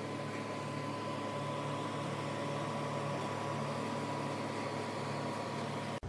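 Steady mechanical hum with a faint high whine over it.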